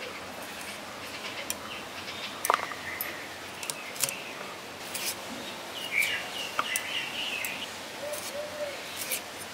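Sharp, irregular clicks of bottle gourd stalks being cut into short pieces on a boti blade. Birds chirp briefly in the background about six seconds in.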